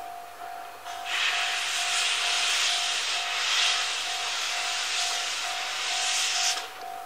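Steam hissing hard from the cylinder drain cocks of the C58 steam locomotive as it moves off, starting suddenly about a second in and cutting off near the end. Behind it a level-crossing bell rings steadily, about two strokes a second.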